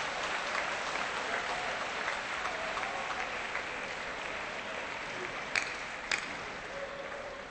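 Spectator applause dying away, with a faint murmur of crowd voices. Two sharp clicks about half a second apart come near the end.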